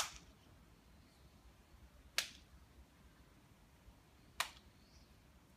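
Three sharp hand slaps, evenly spaced about two seconds apart, from a small child's hands.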